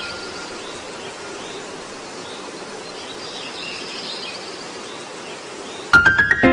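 Steady outdoor ambient hiss with faint chirping. Near the end comes a quick run of sharp, rising struck notes as music begins.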